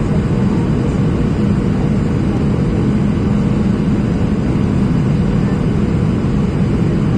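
Steady cabin noise inside a Boeing 737-800 on approach, from a seat over the wing: the CFM56-7B engines and airflow past the fuselage make an even, low rush with a hum, unchanging in loudness.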